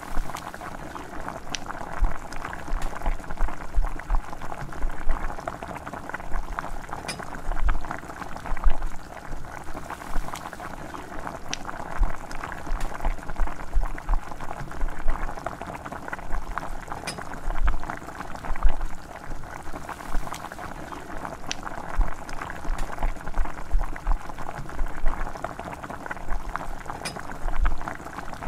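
Curry broth boiling in a frying pan, bubbling steadily, with frequent low knocks and an occasional sharp click.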